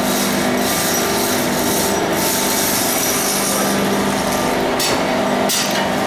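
Large forge hearth fire burning hard under a forced air blast: a steady rushing noise with a low blower hum in it.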